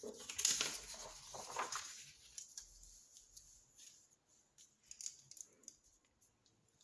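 Paper sheets rustling and sliding against each other as planner pages are moved about, loudest in the first two seconds, then quieter with a few faint ticks and taps.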